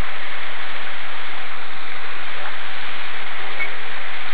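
A steady, even rushing hiss of water.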